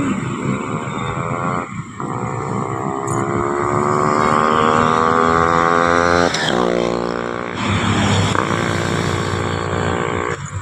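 Yamaha RX135's single-cylinder two-stroke engine under way, revving up through the gears: the pitch climbs, breaks briefly for a gear change about two seconds in, climbs again, drops sharply around six seconds, then rises once more.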